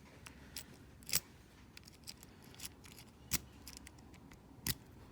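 A handful of sharp, irregularly spaced metal clicks from lock-picking tools working in a small pin tumbler cabinet lock, as it is picked again to free a blocked part.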